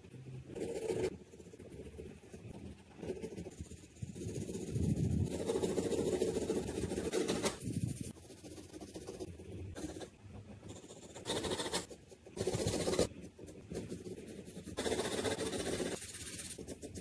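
Graphite pencil sketching and shading on paper: scratchy rasping strokes that come in runs, with short pauses between them.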